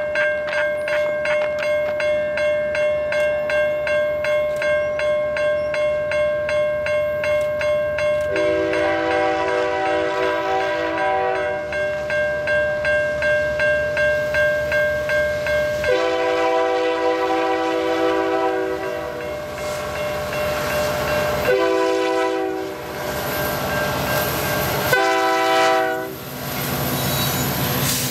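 Level-crossing bell ringing about twice a second while the lead EMD SD75I locomotive of an approaching CN freight sounds its horn in the grade-crossing pattern: long, long, short, long. Near the end the locomotives run past close by, their engines and wheels rumbling.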